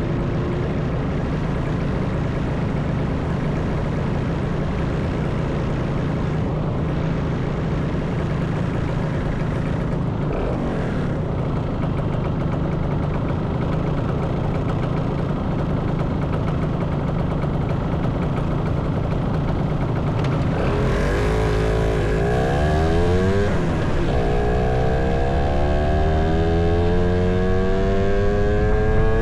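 Motorcycle engine and wind rush while riding, a steady drone for most of the stretch. About two-thirds of the way through, the engine revs up with its pitch climbing in several rising sweeps, the last one long and drawn out, as the bike accelerates.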